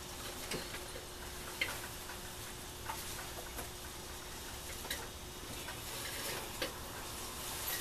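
Faint, sparse clicks and light taps, about one every second or so, from handling the white float tube and the cord it hangs from, over a steady faint hum.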